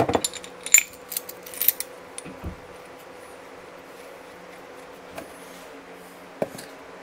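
Small metal parts clinking and rattling for about two seconds, then two light knocks later on, over a steady background hum from a shop fan.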